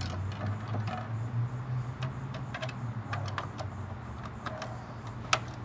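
Plastic end cap of a Valterra E.Z. Hose Carrier being worked by hand onto the end of the plastic storage tube: scattered small plastic clicks and scrapes, with one sharper click near the end, over a steady low hum. The cap is stubborn and does not snap on.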